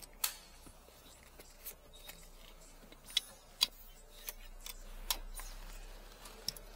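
About seven sharp, scattered clicks and light knocks of plastic as hands handle a car's airbag control module and its wiring connectors.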